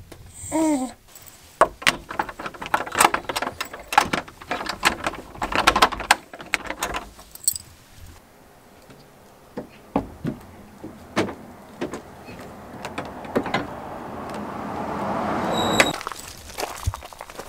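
A spaniel gives a short falling whine at the start. Then keys jangle and a wooden door's latch and handle rattle and knock for several seconds, followed by scattered knocks. A rushing noise swells and cuts off suddenly near the end.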